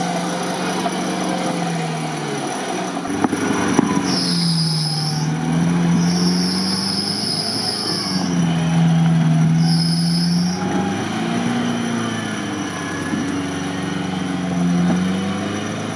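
Off-road 4x4 engine revving up and down while working hard, with a high-pitched whine that comes in three times, the longest about two seconds.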